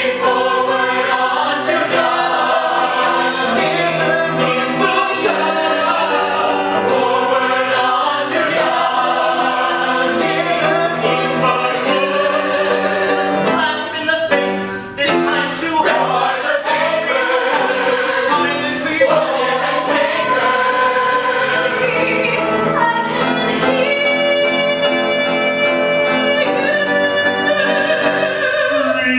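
Mixed-voice ensemble cast singing a musical theatre number in harmony, holding a long chord near the end.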